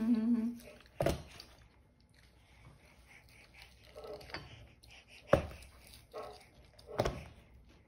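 A baby's hands slapping down on a plastic high chair tray: three sharp smacks, one about a second in and two more near the end, with a few short baby sounds between them.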